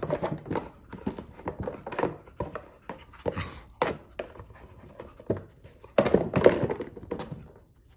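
A Nova Scotia duck tolling retriever panting as she noses and paws a taped-shut cardboard tissue box across a carpet, working to get treats out. Irregular knocks and scuffs of the box go on throughout, with a louder flurry about six seconds in.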